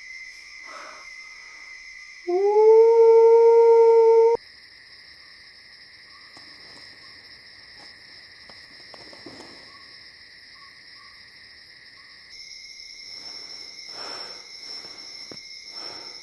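A single loud howl that glides up, holds one steady pitch for about two seconds and cuts off abruptly, over a steady high-pitched insect chorus.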